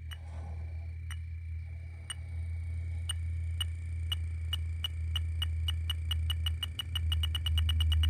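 Electronic refrigerant leak detector ticking, about once a second at first and speeding up to a rapid run of ticks near the end, over a steady low hum: the rising tick rate shows refrigerant building up at the probe as it nears the leak in the evaporator coil.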